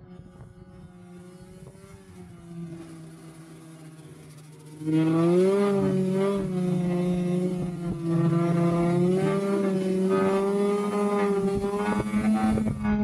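2005 Arctic Cat Sabercat snowmobile's two-stroke engine running steadily at moderate level. About five seconds in the throttle opens, and the engine gets much louder with a slight rise in pitch, then holds there with small wavers in pitch.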